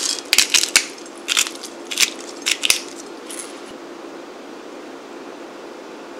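Crushed red pepper being ground over the food: crunchy, crackling clicks in quick clusters that stop about three and a half seconds in, leaving a faint steady hum.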